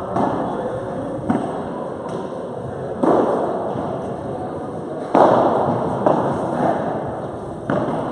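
Padel rally: a padel ball struck back and forth, about five sharp pops one to two and a half seconds apart, each trailing a long echo in a large hall. The loudest hit comes just after the middle.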